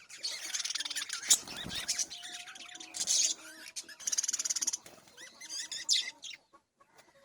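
Several budgerigars chattering and chirping together, with bursts of rapid buzzy trills between the shorter chirps; the chatter thins out near the end.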